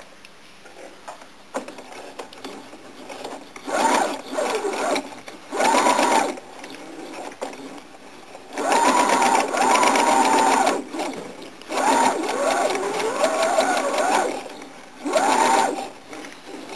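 Electric domestic sewing machine stitching a patchwork seam slowly, in about five short runs with pauses between them as the pedal is pressed and released. The motor's whine rises and falls in pitch as it speeds up and slows down.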